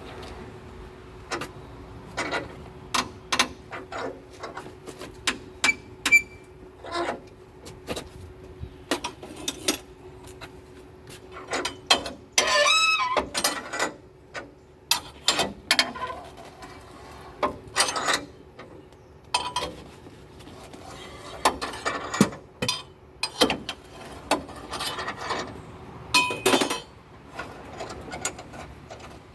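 Irregular metallic clanks, clicks and knocks from tools and metal parts being handled during truck body and frame work. A faint steady hum runs through the first half, and a brief warbling squeal comes about halfway through.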